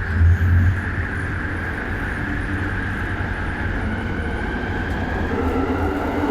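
LRT train running, heard from inside the carriage: a steady low rumble with wheel and track noise, and a motor whine that comes in near the end.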